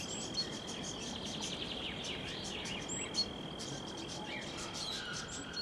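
Faint birdsong of short chirps and little gliding whistles over a steady, thin, high-pitched tone.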